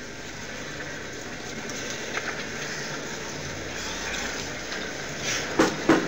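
A steady rushing noise that slowly grows louder, then sharp knocks starting near the end: a gavel rapped for silence in a courtroom.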